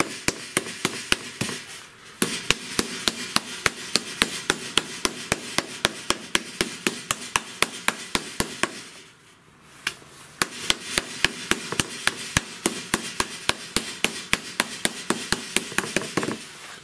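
Meat mallet pounding a slice of pork neck flat on a wooden cutting board: quick, even strikes about four a second, with a brief pause about two seconds in and a longer one about nine seconds in.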